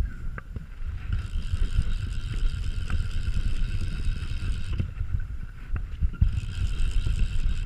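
Wind buffeting and handling rumble on a camera microphone mounted at a fly rod's cork grip, with a faint steady high whine running under it that drops away briefly in the middle.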